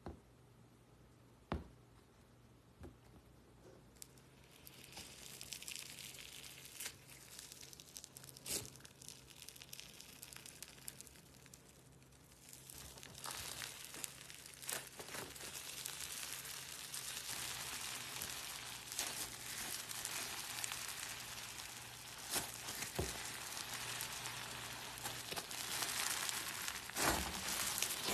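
Slime being worked by hand, giving a crackling, crinkly sound with scattered sharp clicks. It is mostly quiet for the first few seconds, the crackling sets in about four seconds in and grows louder and denser from about thirteen seconds on.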